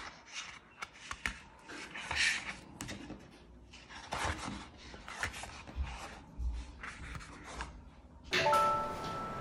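Sheets of pastel paper leafed through by hand, rustling and flapping against one another in a series of short swishes. Music comes in near the end.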